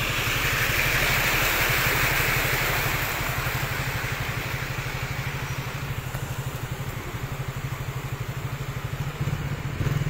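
Small motorcycle engine running with a steady, fast low putter. Over it, an SUV drives past through floodwater, its wheels throwing up splashing, rushing water that is loudest over the first three seconds and then eases off.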